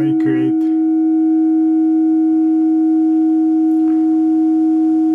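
Microphonic ringing from an IV-3A seven-segment VFD wired as a triode in a vacuum-tube power amplifier: a loud, steady tone with overtones that holds on a very long time, easing off only slightly near the end.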